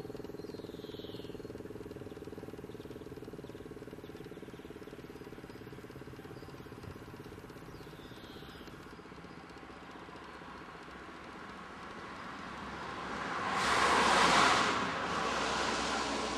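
A vehicle passing, its noise swelling to a peak and falling away near the end. Before it, a faint steady low hum fades out over the first half, with a couple of short high bird chirps.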